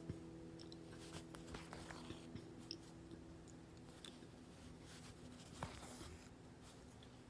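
Faint scratching and light ticks of a hand-sewing needle pushed through corduroy and thread drawn after it, a few small sounds scattered through. A held note of background music dies away at the start.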